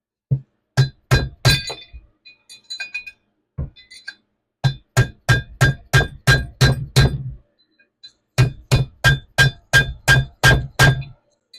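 Hammer blows on a flathead demolition screwdriver driving a bearing race out of a trailer hub. They come in quick runs of about three to four strikes a second, each with a metallic ring, and a few lighter clinks fall between the runs.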